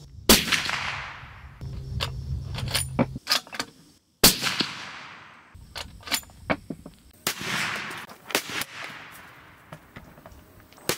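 Suppressed 300 Winchester Magnum bolt-action rifle firing: two sharp shots about four seconds apart, each followed by a long fading echo, then two duller reports about a second apart, also with long echoing tails.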